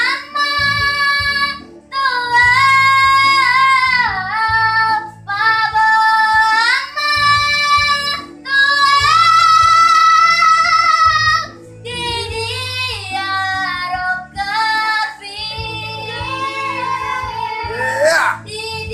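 A young girl sings into a handheld karaoke microphone in long, high, held phrases with short breaks between them, over a quieter backing track. Near the end her voice slides sharply upward.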